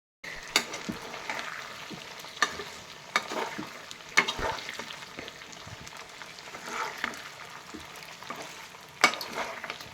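Chicken pieces sizzling as they fry in oil in a karai, with occasional sharp clicks of a spatula stirring against the pan.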